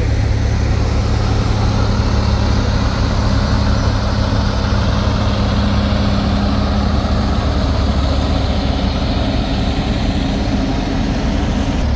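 An engine running steadily with a deep low hum, and a steady tone above it that fades out about two-thirds of the way through.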